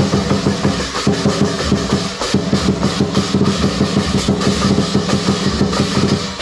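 Lion dance drum beaten in a fast, steady run, with cymbals clashing over it.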